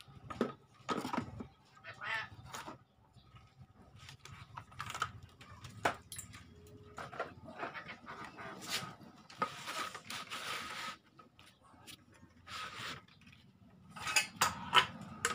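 Scattered clicks, taps and rustles from hands handling a CRT television's open chassis, its wiring and its plastic cabinet, with a longer hissing stretch about ten seconds in.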